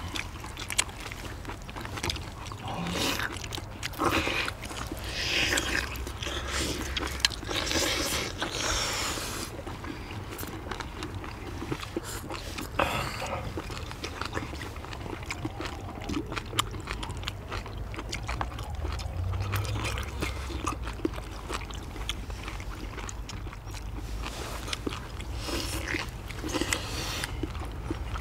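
Several people eating steamed monkfish with bean sprouts: chewing and slurping, with chopsticks clicking against plates and bowls, over a low steady rumble.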